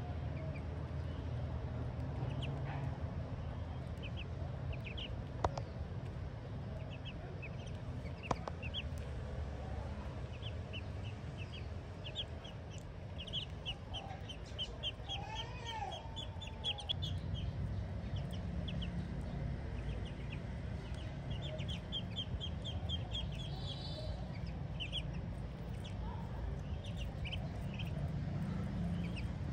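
Ducklings peeping: short high cheeps in scattered runs, busiest around the middle and again about two-thirds of the way through, over a steady low hum.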